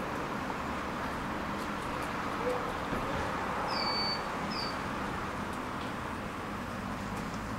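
Tram in motion, a steady even running noise. About four seconds in, two short high chirps sound a moment apart, each dipping in pitch and then holding.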